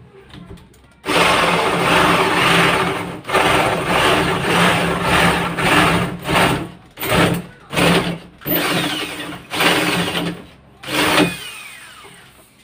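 Corded electric drill spinning a hole saw through a plywood door face, boring the hole for a doorknob: steady cutting from about a second in, then a run of short stop-start bursts as the saw breaks through, stopping a little before the end.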